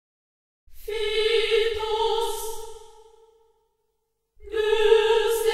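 Music with singing: a long held vocal note, sung twice on the same pitch, each swelling in and then fading away. The first comes about a second in; the second begins near the end.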